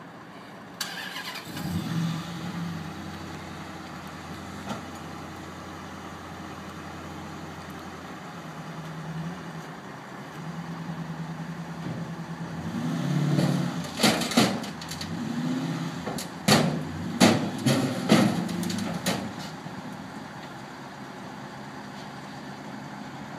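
A Dodge Challenger's engine catches about two seconds in and idles, then revs as the car climbs the steel ramps of a car-hauler trailer, with a string of sharp metal clanks and bangs between about 14 and 19 seconds in.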